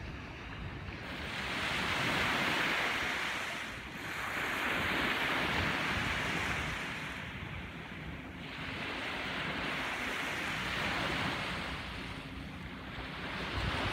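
Small waves breaking and washing up a sandy beach, the surf hiss swelling and fading about four times, with wind noise on the microphone underneath.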